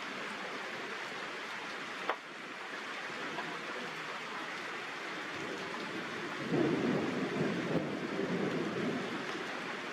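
Steady hiss of falling rain. A single sharp click about two seconds in, and a louder low rumble from about six and a half seconds in, lasting a couple of seconds.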